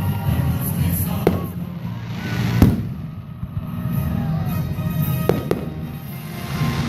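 Fireworks exploding: a bang about a second in, a louder one about two and a half seconds in, and two close together a little after five seconds.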